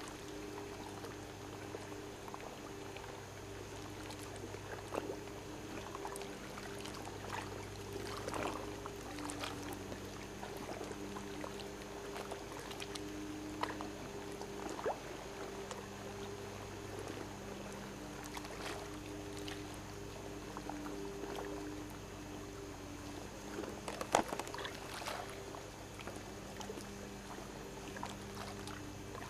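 Scattered small water splashes from a school of fish feeding at the surface, over a steady low motor hum. The loudest splash comes a little past two-thirds of the way through.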